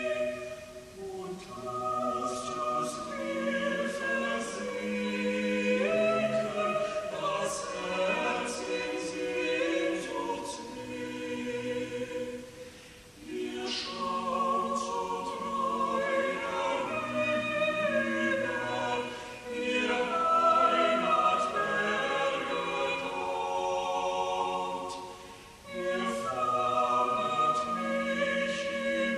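Church choir singing a German sacred song in several-part harmony with instrumental accompaniment. The phrases are separated by brief breaks about 13 and 25 seconds in.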